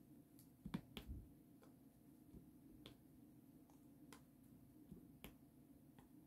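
Faint, irregular clicks of a diamond-painting drill pen tapping small drills onto the canvas one at a time, a couple of louder taps about a second in.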